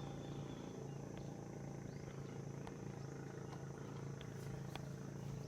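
Quiet background: a steady low hum and a faint steady high-pitched tone, with a few faint ticks.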